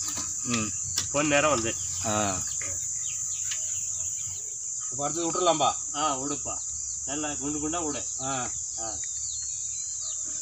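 Steady high-pitched chorus of insects, heard throughout, under a few short snatches of men's voices talking.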